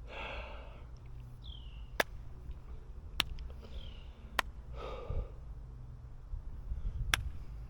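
A man's heavy, winded breathing, with two long sighing breaths, one at the start and one about five seconds in. Sharp clicks come at about every second and a bit. The uploader takes this breathlessness for a sign of a 95% heart-artery blockage.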